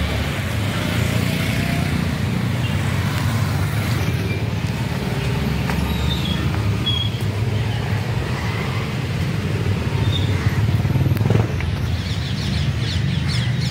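Motorcycles and street traffic running as a steady low rumble.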